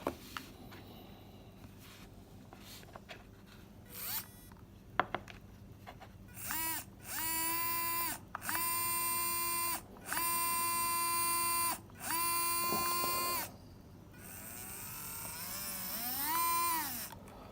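A 17k Mabuchi motor run from a PWM controller gives a high, pitched whine in about five throttle blips of a second or so each, the pitch gliding up, holding and dropping back each time. Near the end the motor spins up with a rising hiss and one more whine. There is no bearing rumble; the motor runs clean and is called silent.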